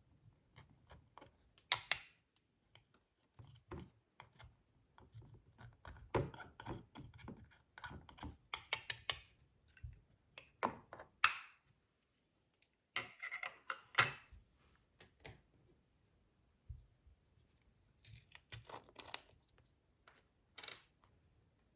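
Slime being handled by hand: irregular sticky crackles, clicks and small pops, with louder bursts about two seconds in and again around eleven and fourteen seconds.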